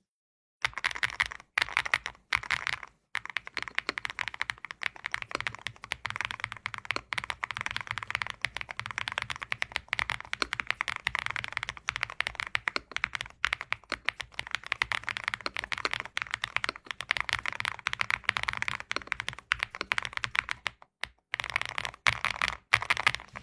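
Wuque Studio NAMA custom mechanical keyboard being typed on quickly and continuously, a dense run of keystroke clacks with a few brief pauses.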